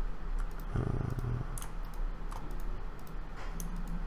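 Computer keyboard keys and mouse buttons clicking in scattered, irregular presses while Blender shortcuts are worked, with a brief low hum about a second in.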